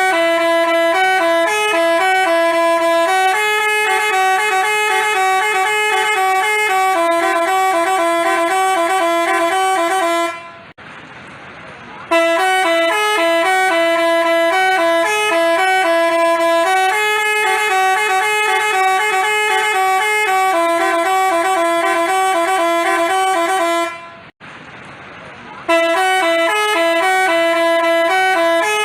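Multi-tone telolet basuri bus horn playing a tune, its notes stepping between a few pitches. It stops twice for about two seconds, near 10 s and near 24 s in, and starts up again each time.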